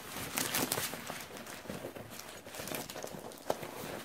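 Hand rummaging inside a nylon backpack liner: irregular fabric rustling and crinkling with small clicks, and one sharp knock about three and a half seconds in.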